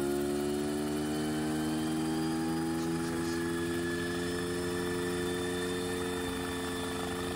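Homemade coaxial helicopter's engine and rotors spooling up. The drone climbs steadily in pitch over the first few seconds, then holds at a steady pitch.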